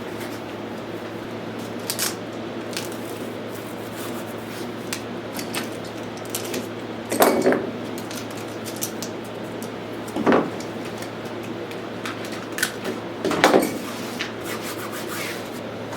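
Small parts and objects being handled and set down: scattered clicks and a few louder knocks, the loudest about seven, ten and thirteen seconds in, over a steady low hum.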